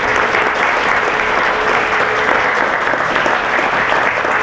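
Audience applauding steadily at the close of a talk.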